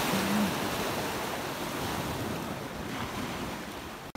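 Sea waves breaking and washing up over a pebble beach, loudest at first and easing off, then cutting off suddenly near the end.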